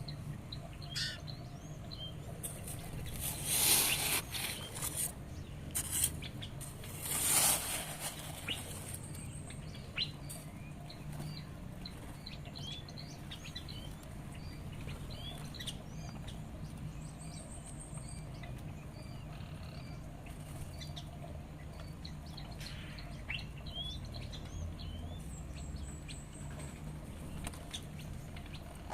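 Small songbirds chirping with many short, scattered calls, over a steady low hum. Two louder rustling bursts come about four and seven seconds in.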